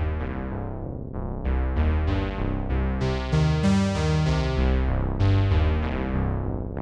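Sequential Prophet-6 analog polysynth running an arpeggiated sequence: bright plucked notes that decay quickly, about three a second, over a low bass line that steps between pitches.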